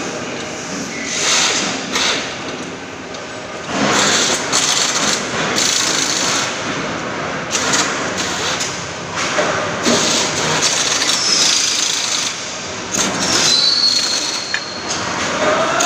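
Clattering and knocking of aluminium scaffold frame parts being handled and fitted into an assembly jig, in irregular bursts over steady workshop noise.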